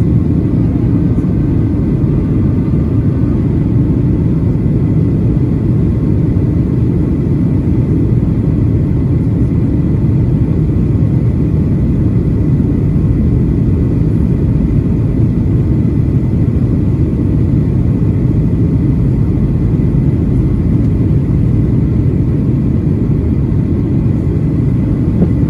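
Steady cabin roar of a Boeing 737-800 in flight, from the CFM56-7B engines and airflow past the fuselage, heard from a seat behind the wing. It is a loud, even low rumble with a faint steady whine above it.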